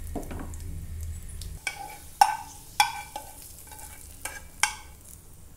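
Cashews and raisins sizzling lightly in ghee in a frying pan, then several sharp metallic clinks of a spoon against the pan and a steel pot as the roasted nuts are tipped onto the rice. The loudest clink comes about two seconds in.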